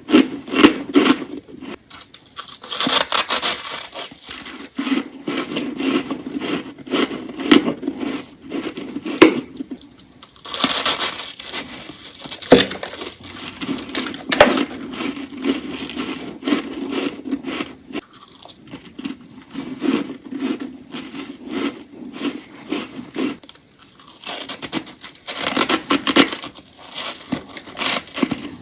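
Powdery freezer frost being crunched and chewed close to the microphone: dense rapid crunches, with a few longer spells of scraping hiss.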